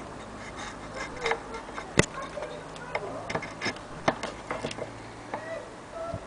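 Irregular clicks and knocks from an antique gramophone's wooden cabinet and fittings being handled, with one sharper knock about two seconds in.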